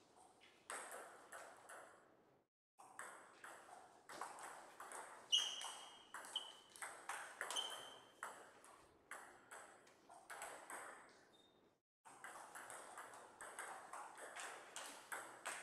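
Celluloid-type table tennis ball clicking off paddles and the table during a rally, a quick run of sharp knocks, with a few short high ringing tones in the middle.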